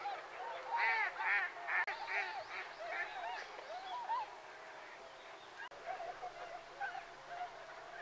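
A flock of waterfowl calling: many short, overlapping calls, busiest in the first few seconds and thinning out after that.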